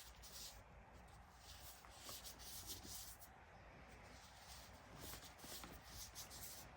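Baking soda powder being crushed and rubbed: soft, dusty crunching in a run of short scratchy strokes, one or two a second.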